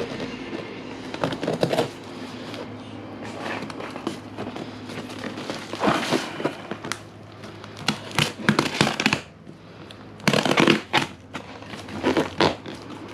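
Cardboard box and its packing being opened and handled, with crinkling, rustling and tearing in irregular bursts; the loudest comes about ten seconds in.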